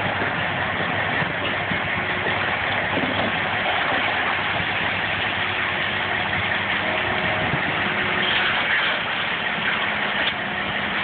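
Heavy diesel engines of a large Komatsu hydraulic excavator and a rigid haul truck running steadily as the excavator digs rock and loads the truck.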